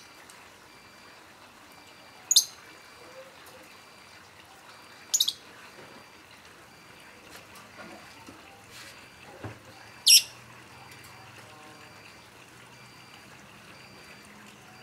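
Lovebird giving short, shrill calls three times, several seconds apart.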